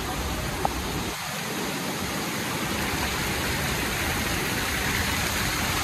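Steady rushing of a large waterfall's falling water.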